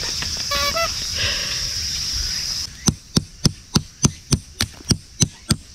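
Insects buzzing steadily at a high pitch, which cuts off. Then a tent stake is hammered into gravelly ground: a regular run of sharp strikes, about three a second.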